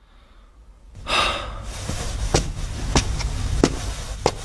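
A short breathy sound about a second in, then footsteps on a hard floor, about one step every 0.6 s, as someone walks away.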